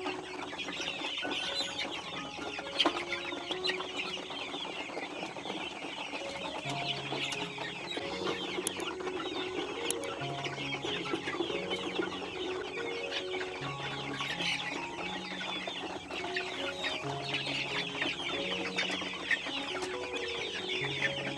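A flock of six-week-old Dominant CZ crossbred pullets peeping and chirping continuously, many birds at once in a dense high-pitched chatter.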